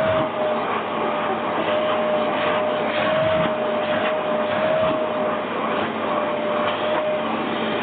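Vacuum cleaner running steadily, a constant motor whine over a loud rushing hiss, with the nozzle being run over a cat's fur.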